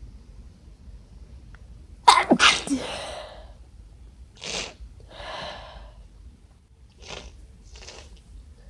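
A congested person sneezes once, loudly, about two seconds in, the sneeze ending in a falling voiced cry; it is set off by white pepper. Several short, softer sniffs and breaths follow.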